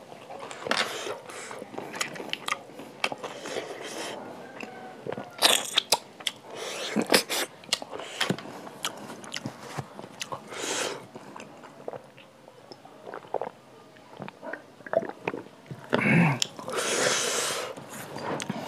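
Close-miked eating of snail curry with rice by hand: wet chewing and crunching with many short sharp clicks, and a longer hiss near the end.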